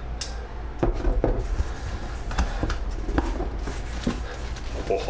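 A parcel being opened and its packaging handled by hand: a string of sharp clicks and knocks, most of them in the first three or so seconds, with rustling between them, over a steady low hum.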